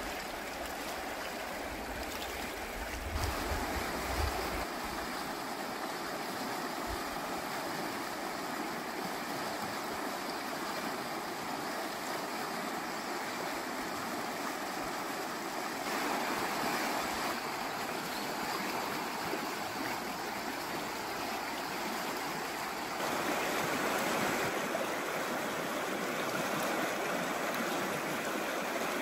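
River water flowing in a steady rush, with some low wind buffeting on the microphone a few seconds in. It gets a little louder about halfway through and again later on.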